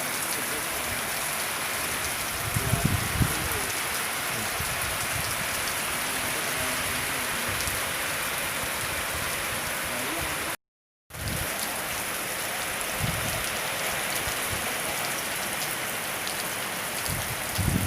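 Heavy rain pouring down steadily, with a couple of brief low rumbles about three seconds in and again near the middle of the second half. The sound cuts out for half a second about ten seconds in.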